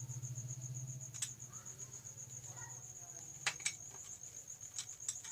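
A cricket trilling steadily in the background, a high chirp pulsing evenly, with a few faint sharp clicks about a second in and again near the end.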